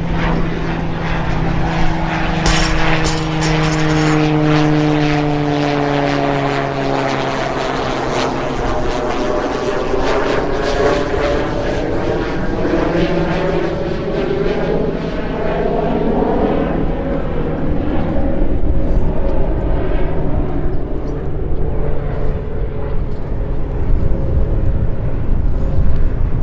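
Propeller airplane flying over, loud, its engine drone sliding down in pitch over the first several seconds as it passes, then a steady drone carrying on.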